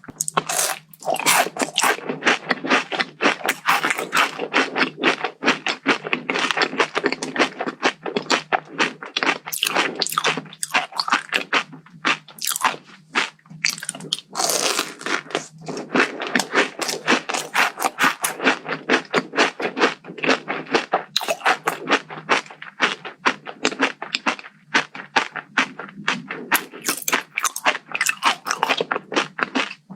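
Close-up chewing and crunching of a crisp dessert, packed with irregular crackles the whole way through. The crunch is typical of kadaif chocolate, its toasted shredded pastry breaking between the teeth.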